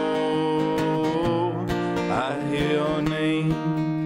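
Original song with a strummed acoustic guitar keeping a steady rhythm, between sung lines.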